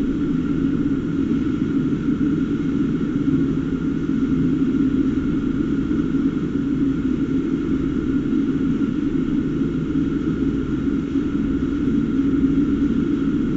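Steady low hum with a faint constant higher tone above it, unchanging throughout, with no coughs or other distinct events.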